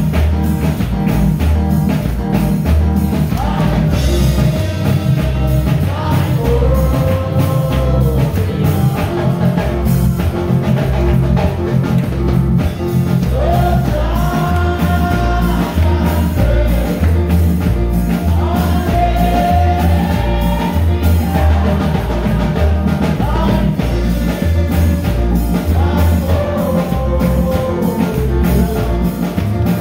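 Church worship music played live by a band, with a steady drum beat and heavy bass under a singing voice.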